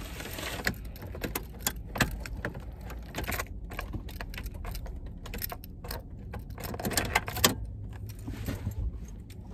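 A bunch of keys jangling and clicking in short, irregular rattles over a low steady rumble.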